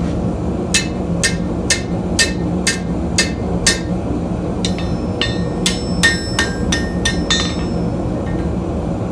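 Blacksmith's hand hammer striking hot steel on an anvil, about two blows a second with a short ringing after each, pausing briefly midway and stopping near the end. A steady low hum runs underneath.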